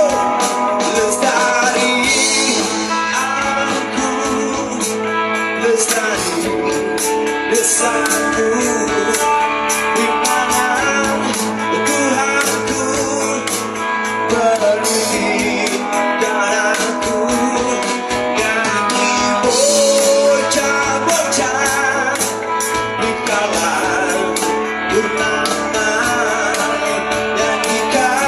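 Rock band music: guitars and drums with a steady beat, with some singing.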